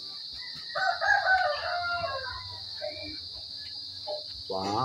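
A rooster crowing once, starting about a second in and lasting under two seconds, over a steady high drone of crickets.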